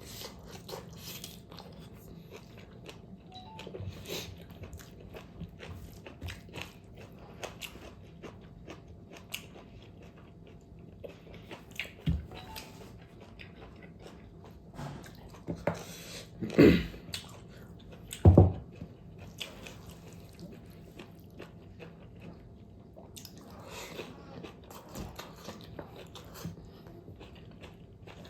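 Close-miked chewing and biting of pork fat: irregular wet mouth clicks and crunches, with a few louder knocks in the middle.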